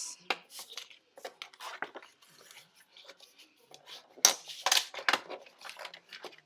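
Cardstock being scored and handled: small clicks and scraping of a scoring tool and paper against a board, with a louder run of scrapes and taps about four to five seconds in.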